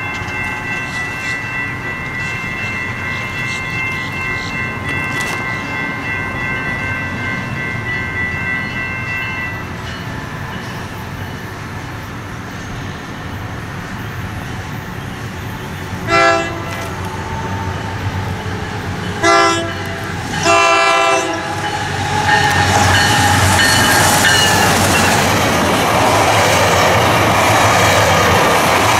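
Diesel locomotive horn sounding three blasts a little past halfway, two short and then a longer one, followed by the train rolling past with the clatter of wheels over the rail joints growing louder toward the end.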